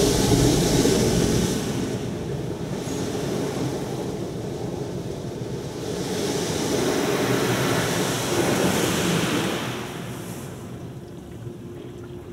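Ryko Ultrasonic US2001 touch-free car wash spraying water onto the car as its gantry travels over it, heard from inside the cabin: a rushing hiss of spray on the body and glass. It is loud at first, eases off, swells again midway, then fades near the end.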